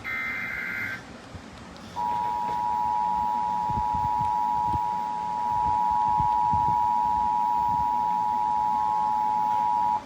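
The end of an Emergency Alert System SAME header, a second of rapid data tones, then after a short pause the EAS attention signal: two steady tones sounded together for about eight seconds over faint radio static, announcing a National Weather Service severe thunderstorm warning.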